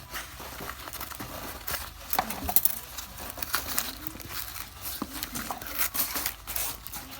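Packaging crinkling and rustling in irregular bursts of small clicks, as it is handled during an unboxing.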